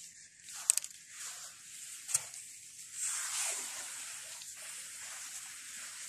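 Wet sand being worked and walked on during clam digging: soft squelching and scraping, with a few sharp clicks about a second and two seconds in, then a steadier hiss from about three seconds on.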